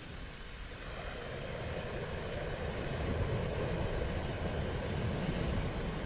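Ocean surf: small waves breaking and washing up a sandy beach, a steady rushing that swells in loudness from about a second in.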